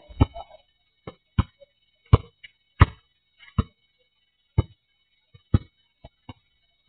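Basketball bouncing on an outdoor asphalt court: a string of separate thuds, unevenly spaced about half a second to a second apart, growing weaker near the end.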